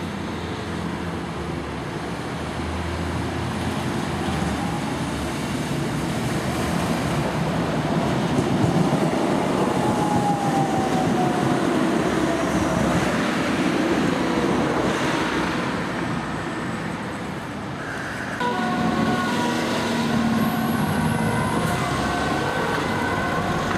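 A Stuttgart DT8 Stadtbahn light rail car passing on street track, its noise building up and a whine falling in pitch as it goes by. About eighteen seconds in, a diesel city bus passes with its engine running.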